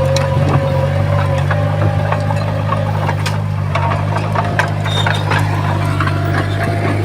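Heavy diesel earthmoving machinery running steadily, with a whine that comes and goes and scattered metallic clanks and rattles.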